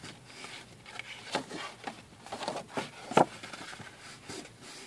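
Cardstock being folded over along its score lines by hand: scattered light taps and paper rustles, the sharpest tap about three seconds in.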